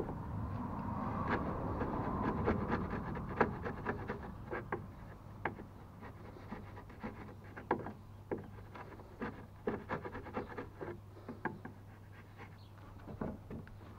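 Hand-pushed wood chisel paring out a notch in a wooden stringer: irregular short scrapes and clicks as the blade bites and slices off chips, one or two a second, over a steady low hum.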